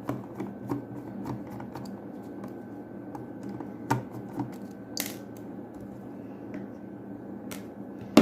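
Light, scattered clicks and ticks of a small screwdriver working on the plastic shell of a computer mouse as its underside screws are undone, with a short scrape about five seconds in.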